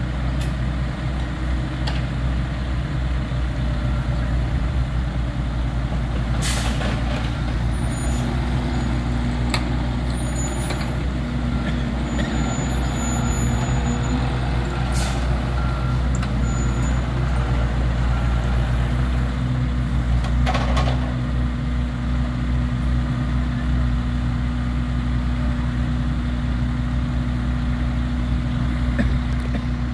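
Heavy diesel construction machinery running steadily, with three sharp knocks and a faint, repeated beeping partway through.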